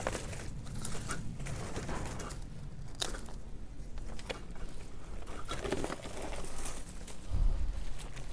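Rustling and crackling of sweet potato vines and a garden support wire being pulled and handled at a container, with scattered clicks and a low thump about seven seconds in.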